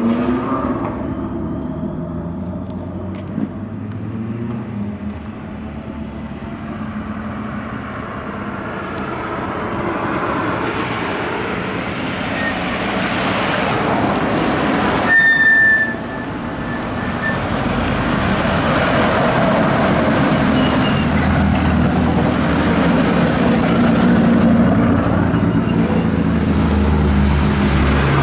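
Hill-climb race car engines. One car's engine note drops away at the start. A broad rushing noise swells to a peak about halfway through and cuts off sharply. Another car's engine grows louder near the end.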